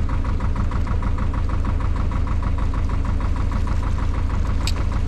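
A narrowboat's old inboard engine running steadily under way, a deep hum with an even, rapid beat.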